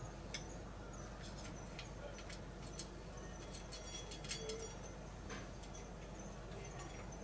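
A cat eating from a metal bowl: scattered soft clicks of chewing and licking, bunched together a little past the middle, over a steady low background hum.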